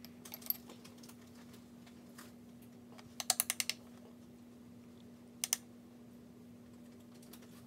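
Light clicks and taps from handling an eyeshadow palette and makeup brush: a quick run of about six taps a little over three seconds in and a sharp double click later, over a steady low hum.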